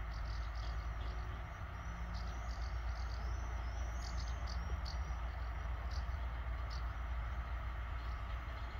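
Low steady rumble of a heavy freight train's two locomotives in the distance, with short high chirps of insects and birds over it.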